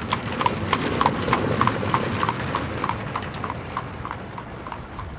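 Horse's hooves clip-clopping at a walk, about three ringing knocks a second, growing louder over the first two seconds and then fading away.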